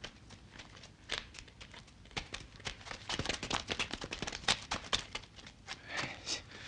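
Leaves and twigs of garden shrubbery rustling and crackling as people push through the bushes, in a quick, irregular scatter of small crackles and snaps.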